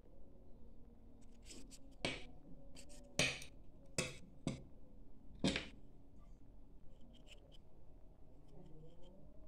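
Hand-work noises as thread is bound onto a knife's wooden handle: a string of sharp clicks and taps, about seven over four seconds, then a few faint ticks.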